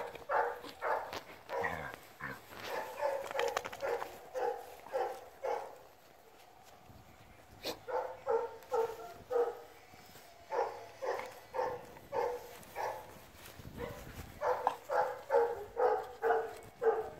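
Vizsla giving play barks: short, even barks about two to three a second, in several runs with brief pauses, loudest near the end.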